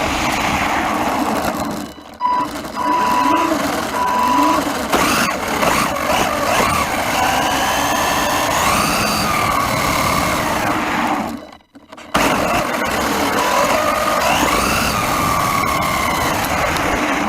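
Wltoys 144001 RC car's brushed 550 electric motor whining as it is driven, its pitch rising and falling with the throttle. The sound cuts out briefly about two seconds in and again a little past the middle.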